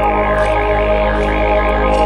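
Didgeridoo playing a continuous low drone, its upper overtones sweeping up and down in a quick wobbling pattern through the middle.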